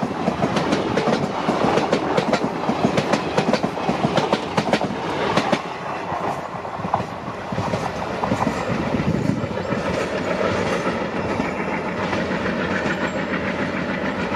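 Passenger train coaches running on the track, wheels clicking rapidly over the rail joints over a steady rumble. After about six seconds the clicks thin out as the last coach moves away, leaving a softer rolling rumble.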